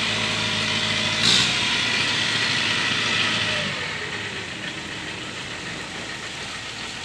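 Kubota DC70 combine harvester's diesel engine running with a steady mechanical din, a brief sharp knock about a second in, and the sound dropping quieter a little past halfway.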